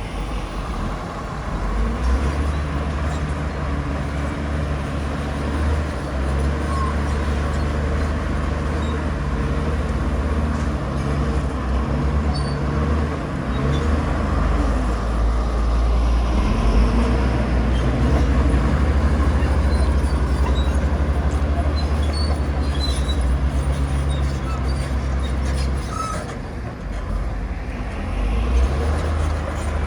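Heavy diesel earthmoving machinery running steadily under load: a deep engine drone with slight rises and falls in level.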